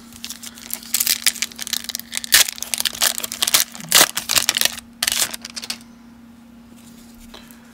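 A pack of 1992 Upper Deck baseball cards being torn open, its wrapper crackling and crinkling in a dense run for about five seconds before it stops.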